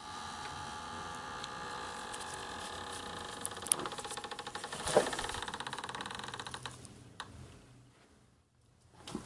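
A fly buzzing close by, a steady buzz that turns into a fast stuttering rattle about halfway through, with a couple of sharp clicks, and stops about seven seconds in.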